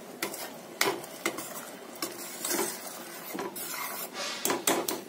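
A metal spoon stirring roasted cashews into thick curry gravy in a metal pan: wet scraping, with several sharp clinks of the spoon against the pan.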